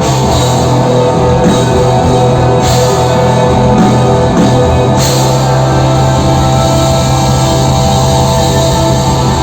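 Rock band playing loudly, with drum kit and electric guitar. The drums beat steadily until a cymbal crash about five seconds in, after which the music carries on more sustained.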